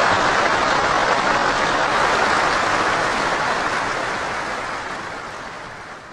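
Crowd applauding, a dense wash of many hands clapping that fades out gradually over the last three seconds.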